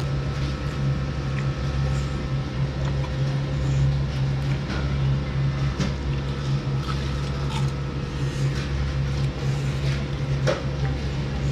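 Steady low mechanical hum of a restaurant dining room, with a few light clicks and clinks of chopsticks and tableware over it, the clearest about six seconds in and near the end.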